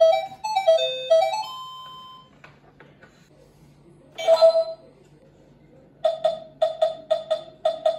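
Electronic sounds from a toy children's learning laptop: a short beeping tune that ends on a held note, a brief electronic burst about four seconds in, then a quick run of short, same-pitched beeps, about four or five a second, as the game controller's buttons are pressed.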